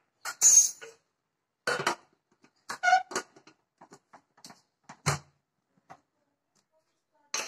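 Aluminium pressure cooker lid being fitted and closed: a string of separate metal clanks, scrapes and clicks as the lid is set in and the handles are brought together and locked, with one more knock near the end.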